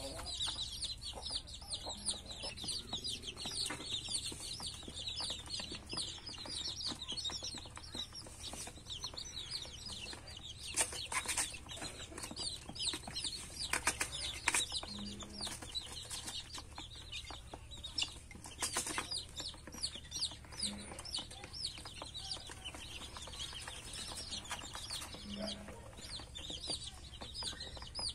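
A flock of young chicks peeping without pause: a dense run of short, high, falling cheeps, with occasional sharp clicks.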